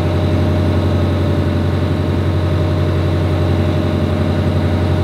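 Steady drone of a sailboat's inboard engine heard below deck, a deep even hum that does not change.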